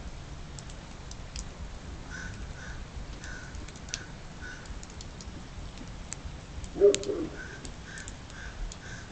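Repeated short animal calls at the same pitch, about two or three a second, in two runs. About seven seconds in comes one louder, lower-pitched call.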